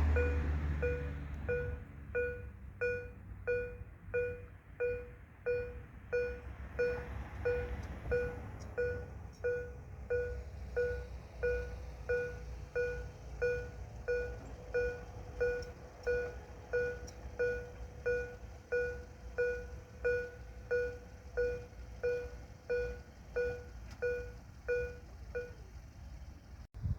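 Railway level-crossing warning bell ringing at a steady pace, about one and a half strikes a second, each strike the same ringing tone. A passing train's low rumble fades out in the first couple of seconds, and the bell stops near the end.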